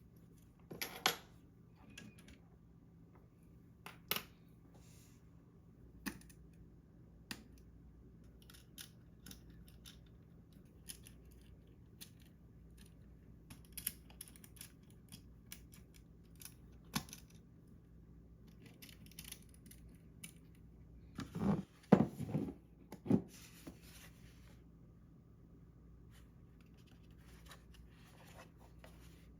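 Small parts and tools being handled while modding a mechanical keyboard: scattered light clicks and taps, with a short cluster of louder knocks about three quarters of the way through.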